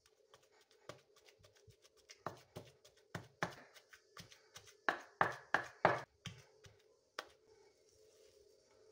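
Wooden pestle pounding a shredded-chicken kabab mixture in a stone mortar: a run of thuds, about three or four a second, loudest in the middle and stopping near the end.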